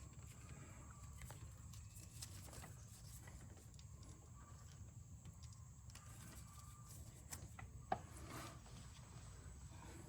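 Faint, steady low rumble with scattered light clicks and knocks, and one sharper knock about eight seconds in.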